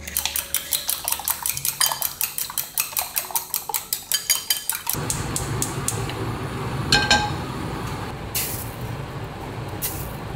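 Rapid, even clinking of a utensil beating eggs against a glass bowl, about seven strokes a second. About five seconds in it gives way to the steady hiss and low rumble of a lit gas stove burner, with one ringing metallic clank as a stainless steel frying pan is set on the grate.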